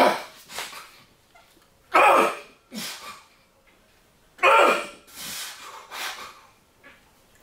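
A man's loud, short grunts as he presses a barbell overhead, about one every two seconds, each falling in pitch, with quieter breaths and exhalations between them.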